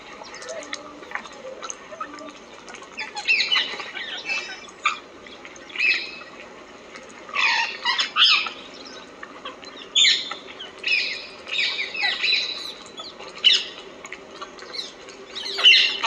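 A flock of birds: about a dozen short, irregular bursts of squawking and wing flapping.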